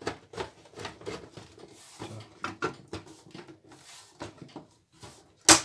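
The top cover of a Shivaki VCR being slid and pressed onto its chassis by hand, with small scrapes and light knocks as its tabs are worked into their slots, and one sharp knock near the end.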